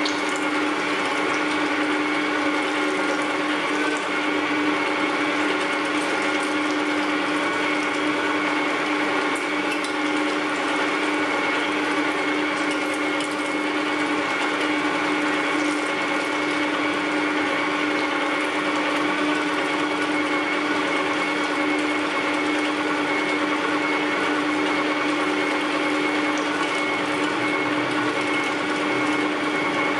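Electric meat grinder running steadily with an even, constant hum, grinding meat and pushing the mince out through its grinding plate.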